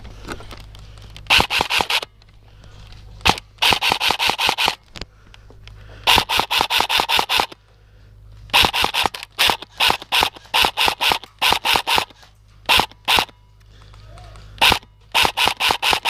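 Airsoft rifle firing repeated short full-auto bursts, about ten shots a second, a dozen or so bursts of up to a second and a half each with short pauses between.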